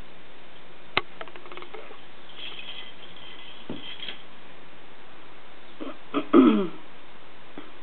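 Light clicks and soft knocks as a kitten bats and pounces on a small toy on carpet, with one sharp click about a second in. Near the end comes a short voice sound that falls in pitch, the loudest thing heard.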